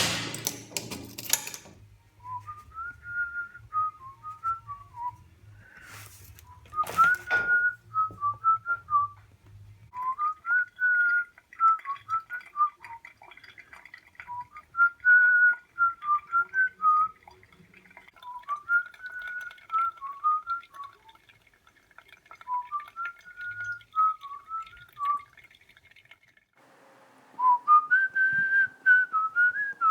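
A person whistling a tune in short melodic phrases, with pauses between them. A brief rush of noise interrupts about six to seven seconds in.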